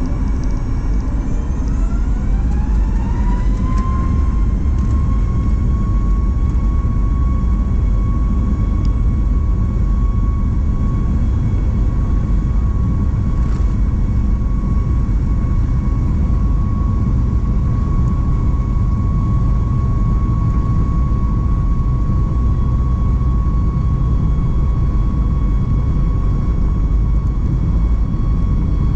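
Boeing 737 MAX 8's CFM LEAP-1B turbofan engines spooling up to take-off thrust, heard from inside the cabin: a whine rises in pitch over the first few seconds, then holds steady over a deep rumble as the plane rolls down the runway.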